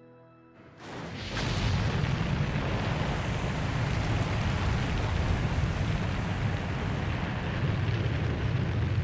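Space Shuttle's rocket engines igniting on the launch pad: a sudden rumble that starts under a second in, swells quickly and then runs on steady and loud.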